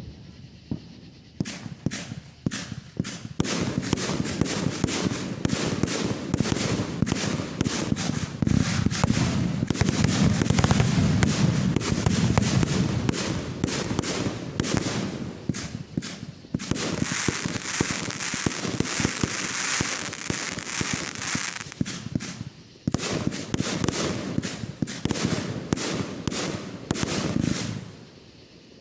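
Fireworks going off: rapid strings of sharp pops and dense crackling, starting about a second and a half in, with a short lull about halfway through and another about two-thirds through, thinning out just before the end.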